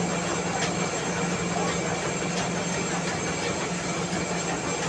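Mini rice mill running steadily: its motor and huller give a constant low hum under a dense hissing rattle, with a few sharp ticks.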